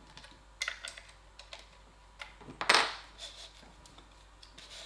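Handling clicks and knocks as an anamorphic lens attachment is worked off a camera rig, with one louder, longer handling noise a little under three seconds in.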